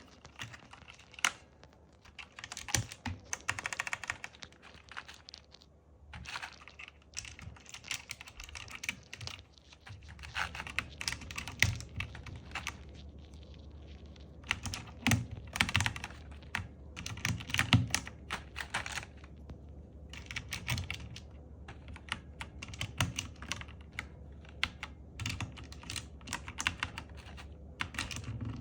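Typing on a Zifriend KA646 mechanical keyboard: quick runs of key clicks with short pauses between them.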